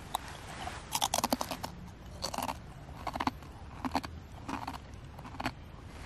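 A person biting into a crunchy biscuit and chewing it. A quick run of crunches comes about a second in, then single crunching chews follow at a steady pace, five more in all.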